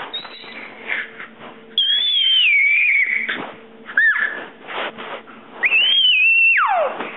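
Baby girl squealing in high-pitched, drawn-out squeals: a long one falling in pitch about two seconds in, a short one around four seconds, and another near six seconds that slides steeply down at its end.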